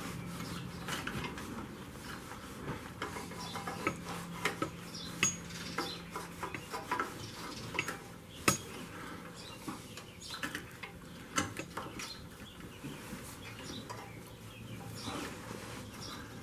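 Scattered light clicks, taps and rubbing from a stiff, greasy motorcycle wiring harness being worked into place, its wires and connectors knocking lightly against the frame, with one sharper click about halfway through.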